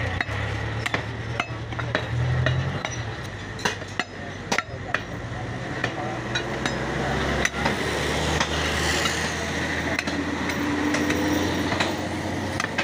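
Scattered, irregular sharp knocks of meat cleavers striking wooden chopping blocks, over a steady low background rumble.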